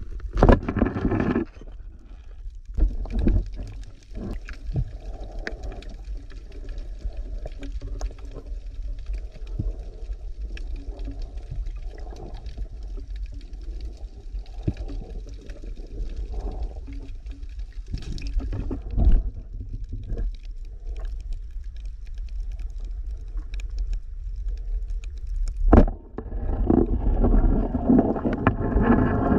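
Underwater sound picked up by a camera in its housing: a low rumble of water movement with scattered sharp clicks and knocks. A louder rush of water comes near the end.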